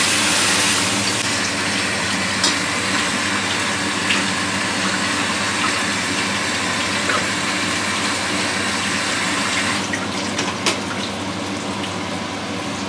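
Water running steadily from a kitchen tap as sliced potatoes are rinsed, with a few light knocks; the flow thins about ten seconds in.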